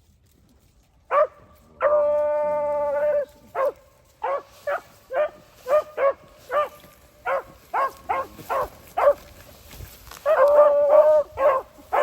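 Beagle hounds giving tongue on a rabbit's trail: a single bark, then one long drawn-out bay, then a string of short chop barks about two a second, with overlapping bays near the end.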